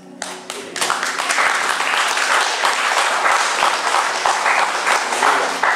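Congregation applauding. A few scattered claps come first, full applause builds about a second in, and it dies away near the end.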